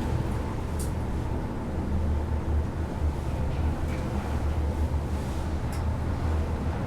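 Schindler passenger lift car travelling downward: a steady low hum from the moving car, with a few faint ticks.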